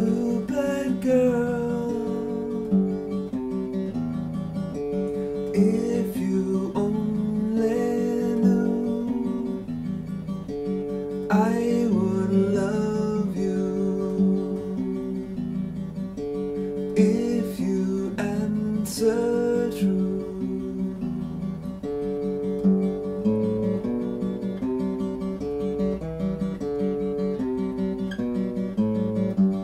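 A 1970s Guild D-25 mahogany dreadnought acoustic guitar playing an instrumental passage of strummed chords that ring on and change every second or so.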